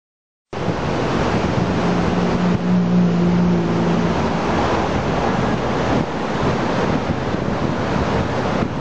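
Steady rushing roar of a large waterfall, with wind noise on the microphone; it begins abruptly about half a second in. A faint low hum sits under it for a couple of seconds.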